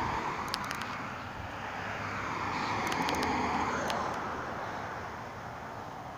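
A passing vehicle, its rushing noise swelling to a peak about three seconds in and then fading. A few faint, sharp cracks of distant fireworks sound over it.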